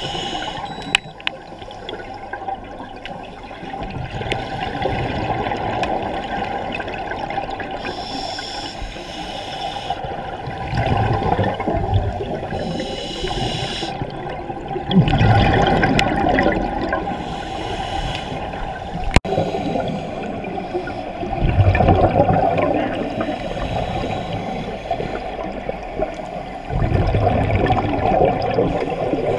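Scuba diver breathing through a regulator underwater: short hissing inhalations alternate with bursts of rumbling, bubbling exhaled air, one breath every few seconds.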